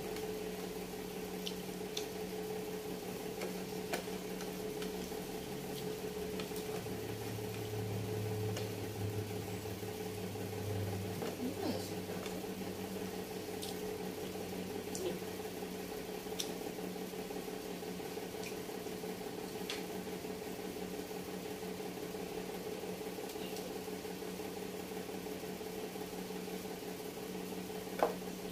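Steady electrical hum, with a lower hum added for a few seconds around the middle, and scattered faint clicks and taps of someone eating by hand at a table.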